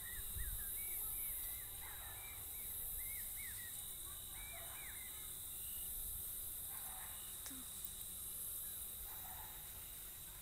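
Birds chirping outdoors: a rapid run of short, arched chirps through the first half, then fainter, scattered calls. A steady high hiss runs underneath, with a brief low rumble of wind on the microphone near the start.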